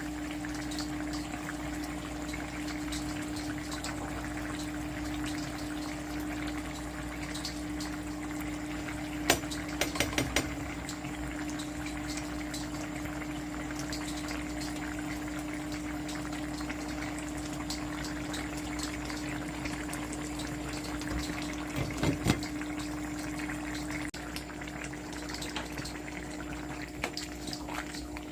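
A pot of mixed vegetables cooking on the stove: a steady simmering noise over a constant low hum, with a quick run of clicks or knocks about nine to ten seconds in and again around 22 seconds.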